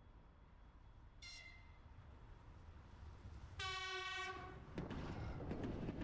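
Electric passenger train sounding its horn as it approaches: a short, high toot, then a longer, louder and lower blast of about a second. In the last second the train reaches the microphone and rushes past with a loud rumble and clicking wheels over the rail joints.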